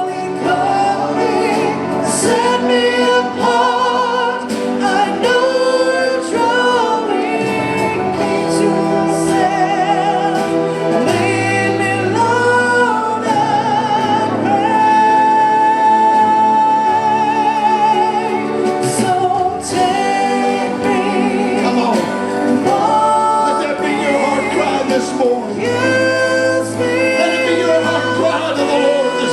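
Gospel worship music: voices singing over instrumental accompaniment with sustained low notes.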